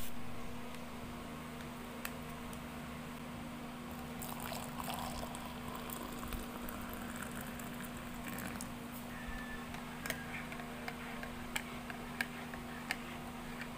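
Kitchen cooking sounds: a steady hiss over a low hum, with scattered light clicks and taps, busier in the middle.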